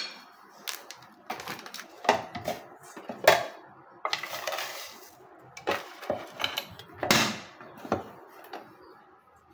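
A spoon clinking and tapping against plastic spice containers and a ceramic bowl while spices are scooped onto raw chicken, in a string of short knocks and clicks, with a longer rustling scrape about four seconds in.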